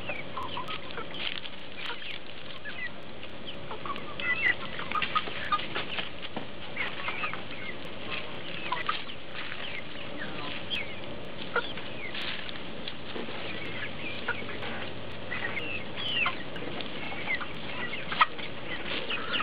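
A flock of mixed-breed backyard hens clucking while feeding: many short, high calls at irregular moments throughout.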